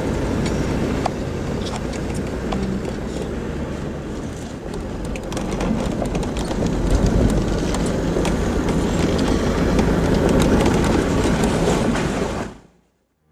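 Off-road 4x4 driving slowly over a rough, bumpy dirt track, heard inside the cabin: a low engine-and-tyre rumble with scattered rattles and knocks from the body and suspension. It fades out about a second before the end.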